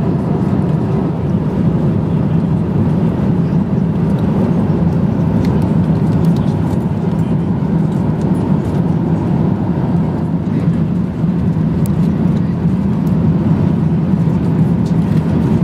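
Steady low drone inside the cabin of an Airbus A350-900 in flight, made of engine and airflow noise heard from an economy seat.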